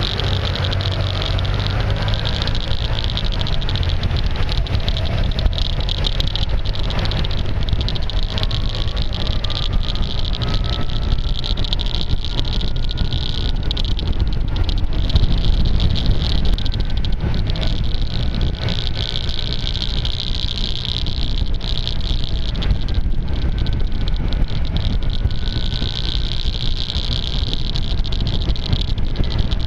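Steady wind noise and engine noise from a moving maxi-scooter, as picked up by a suction-mounted action camera whose microphone is taped over. A strange clicking from the tape runs through it.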